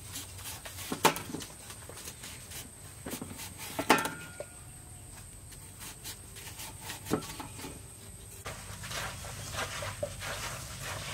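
Knives cutting through watermelon over a stainless steel bowl, with a few sharp knocks of a blade on the bowl about one, four and seven seconds in, one of them ringing briefly. Near the end come quicker, softer squelching strokes as the watermelon chunks are mashed in the bowl with a masher and a wire whisk.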